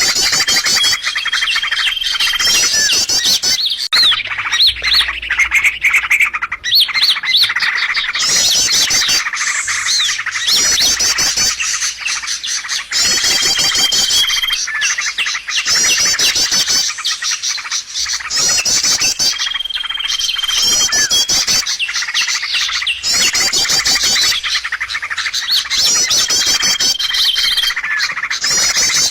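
Bird lure (pikat) recording of songbird calls: rapid high chirping trills with a short steady whistle, the same phrase repeating about every six seconds.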